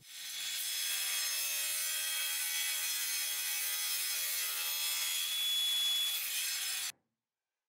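Table saw running with its blade cutting wood as a crosscut sled is pushed through it, a steady motor hum under the hiss of the cut. It builds up over the first second and cuts off abruptly near the end.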